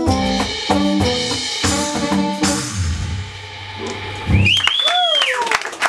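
A world-jazz band playing its closing bars: keyboard and keyboard-bass notes over percussion hits, with the bass held low before one final accented hit about four seconds in, where the music stops. An audience member's single high cheer then rises and falls in pitch.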